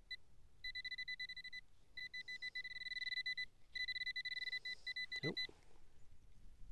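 A metal detecting pinpointer sounds a high, rapidly pulsing tone in several bursts, short ones and long ones, as it is probed into the soil: it is signalling a metal target close to its tip. A brief swish about five seconds in.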